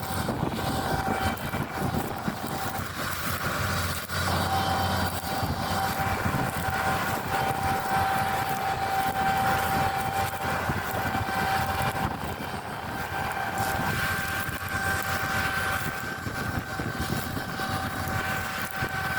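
Claas Lexion 8900 combine harvester running steadily while harvesting wheat: a dense machine rumble with a constant high whine.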